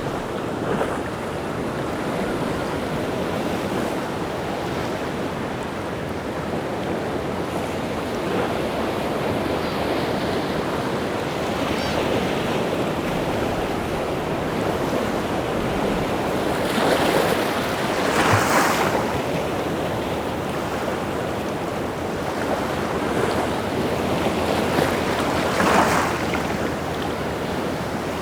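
Rough sea waves crashing and washing on the shore in a continuous rush, with two louder breakers, one a little past halfway and one near the end.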